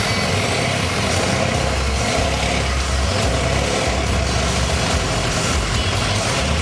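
Heavy truck engine running as a lifted Ford F-250 Super Duty on tractor tires pushes through deep water, with a steady rush of churned water. The low rumble gets stronger about a second and a half in.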